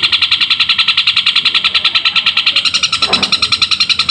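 Long-tailed shrike (cendet) singing a fast, unbroken chatter of house-sparrow-like notes, about fourteen a second. A short low sound cuts in about three seconds in.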